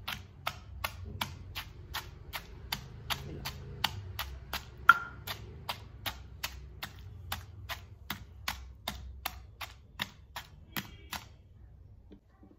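Pestle pounding raw tamarind in a stone mortar, a steady beat of about three dull knocks a second, crushing the pods to a paste for pickle. One stroke about five seconds in is the loudest and rings briefly. The pounding stops about eleven seconds in.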